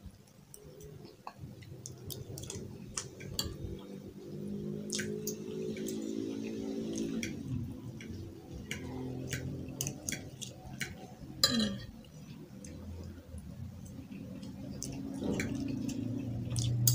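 Forks and spoons clicking and scraping against dinner plates of baked macaroni as two people eat quickly, with many short, sharp clinks scattered throughout. A faint low drone of steady tones runs underneath from a few seconds in.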